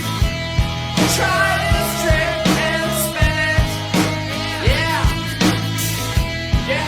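Rock music with a regular drum beat under held guitar notes, with sliding pitches that rise and fall about once a second.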